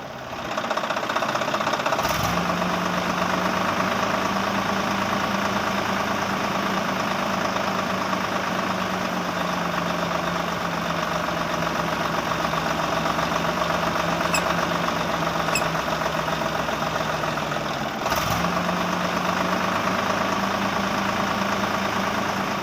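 Small electric motor of a homemade model machine running steadily with a whirring buzz, briefly interrupted twice.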